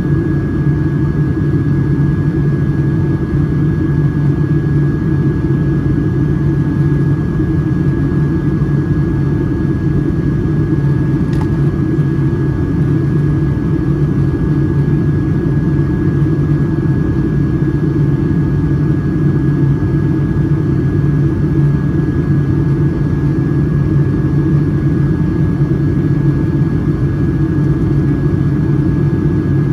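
Boeing 757-200 cabin noise in flight: a loud, steady drone of the engines and airflow, with a thin steady whine above it.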